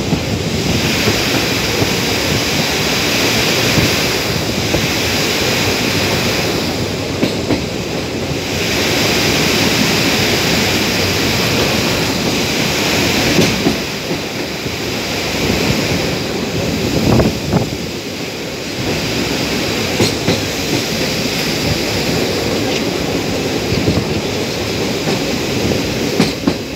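Train running at speed, heard from aboard: a steady, loud rumble of wheels on rails with a few sharp clicks scattered through it.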